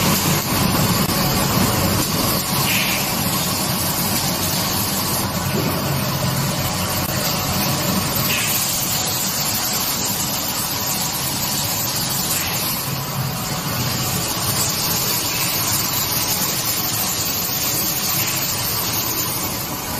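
Automatic glass-jar CNC two-colour screen printing machine running: a steady mechanical hum and whir, with a short hiss about every three to four seconds as it cycles.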